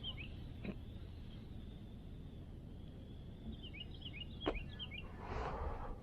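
A small songbird singing a quick run of short, high chirped notes, once at the very start and again about four seconds in, over a steady low outdoor background. Two sharp clicks and a brief rush of noise near the end.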